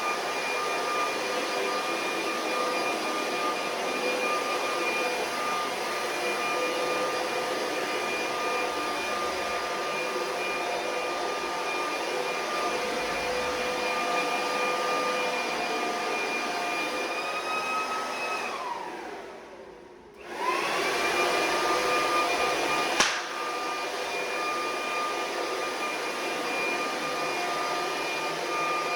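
Vacuum cleaner motor running with a steady whine; about 18 seconds in it is switched off and winds down in pitch, then it is switched back on and spins back up to speed. A single sharp click follows a couple of seconds later.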